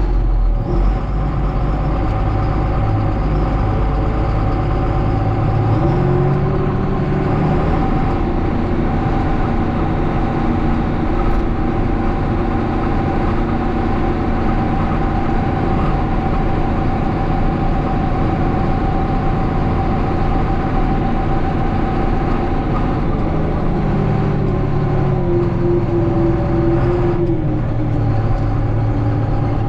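Farm tractor engine running steadily under load while pulling a grain cart through a corn field. Its pitch shifts about six seconds in and again around twenty-five seconds in.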